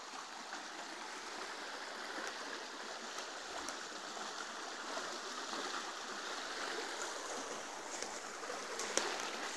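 Small woodland stream rushing and rippling steadily over a low line of stones. A few faint sharp clicks sound near the end.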